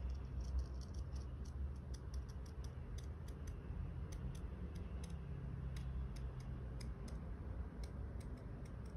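Scissors snipping thin card along a curve: a run of small, irregular clicks a few times a second, over a faint low hum.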